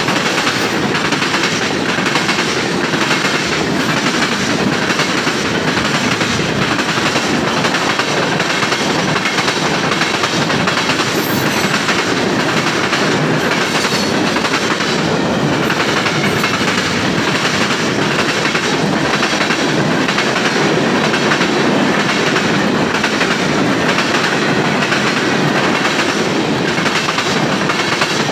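Mixed freight train of hopper, flat and tank cars passing close by: a steady loud rumble and rattle of steel wheels on the rails, with a regular clickety-clack of wheels over rail joints.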